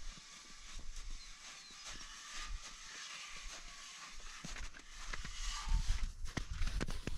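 Footsteps crunching over old snow, irregular and soft at first and growing louder about six seconds in, with wind rumbling on the microphone toward the end.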